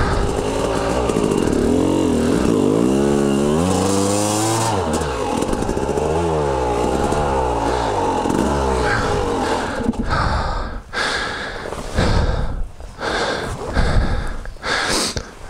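Dirt bike engine revving up and down under load, the revs rising and falling every second or so as it struggles for grip on a steep muddy climb. About ten seconds in the engine note drops away and a run of irregular knocks and scrapes follows.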